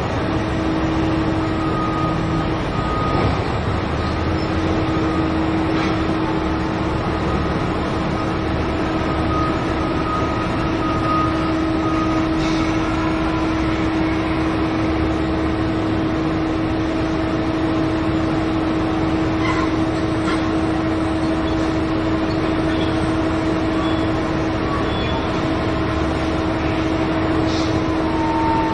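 Heavy mining machinery running steadily: a constant deep drone with an unchanging hum at one pitch, and a few faint clanks.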